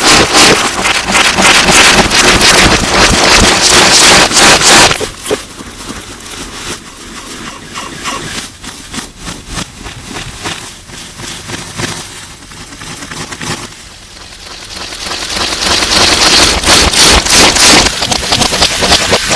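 Heavily distorted slime being squished and worked by hand, a dense stream of crackling wet pops and clicks. It is loud at first, drops quieter about five seconds in, then swells back up near the end.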